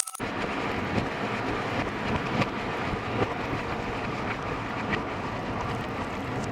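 Water boiling violently against red-hot material: a dense, steady rumbling hiss with scattered crackles, starting abruptly just after the start.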